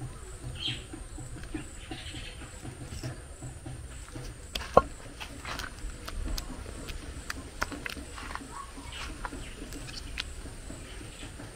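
Thick okra soup sliding and slopping out of a tipped aluminium pot into a ceramic dish, with scattered soft squelches and ticks. There is one sharp knock about five seconds in.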